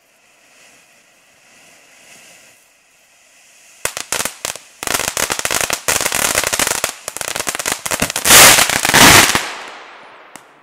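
Weco 'Yang' firework fountain burning with a faint hiss, then, about four seconds in, breaking into loud, dense crackling and popping that is loudest just before it stops near the end and dies away.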